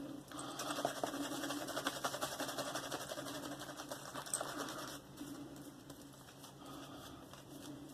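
Synthetic shaving brush swirling rapidly on a puck of Mitchell's Wool Fat soap, working up lather with a fast wet swishing; the brisk swirling stops about five seconds in and fainter handling follows.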